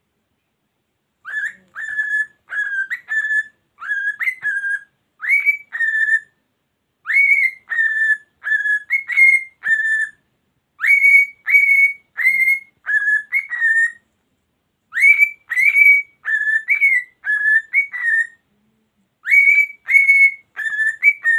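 Cockatiel whistling a long string of short notes, each swooping up and then holding, in phrases of four or five with short pauses between them, starting about a second in.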